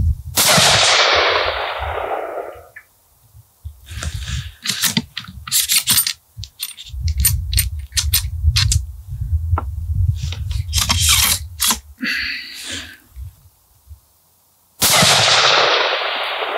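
Two shots from a .308 Winchester bolt-action rifle (Wilson Combat NULA Model 20), one just after the start and one about fifteen seconds later, each followed by an echo that rolls away over about two seconds. Between the shots come clusters of metallic clicks and rattles from handling.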